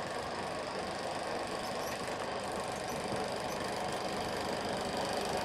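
Eiki 16mm film projector running steadily, its motor and film-transport mechanism giving a continuous mechanical whirr over a steady low hum.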